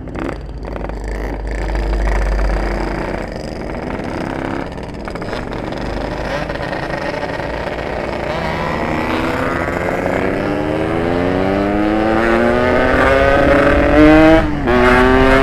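Yamaha RX-King's ported two-stroke single-cylinder engine accelerating hard through the gears: its pitch climbs steadily through the second half, drops suddenly at a gear change near the end, then climbs again.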